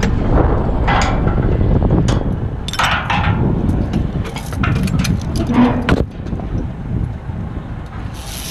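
Pile-driving rig's steel leads and rigging giving irregular metal clanks and knocks over a steady low rumble.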